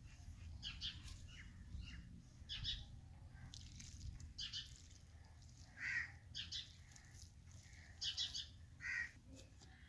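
Crows cawing now and then, with smaller birds chirping, faint over a low steady background rumble.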